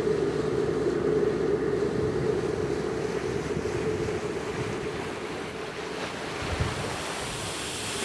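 Wind and sea noise heard from a ship at sea: a steady rush with a low hum underneath, easing off a little after the middle.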